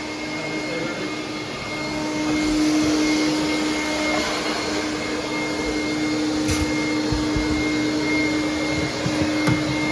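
Vacuum running steadily with an even hum as an air duct is pre-vacuumed, with a few low knocks in the second half.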